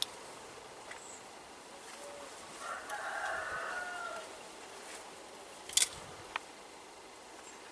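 A rooster crowing once, a drawn-out call of about a second and a half, starting nearly three seconds in. A sharp click follows about six seconds in.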